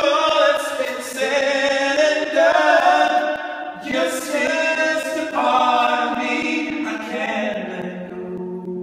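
Several men singing wordless a cappella harmony, holding chords that change every second or two and growing softer toward the end.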